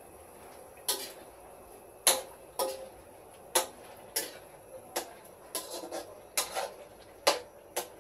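Kitchenware clinking: about a dozen sharp, irregular clinks and knocks of dishes or utensils.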